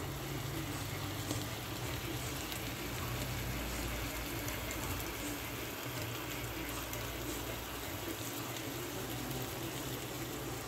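Smothered chicken cooking in a pan on the stove, a steady bubbling sizzle with a low hum underneath.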